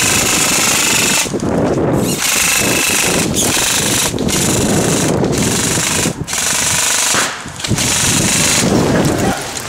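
Airsoft electric guns (AEGs) firing full-auto, a fast mechanical rattle with a gearbox whine, in several long bursts broken by short pauses.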